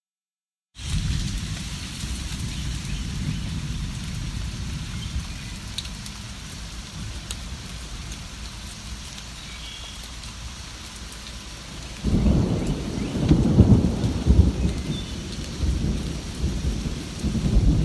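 Steady rain falling, broken by a second of dead silence at the very start. About twelve seconds in, a loud low rumble of thunder sets in and rolls on to the end.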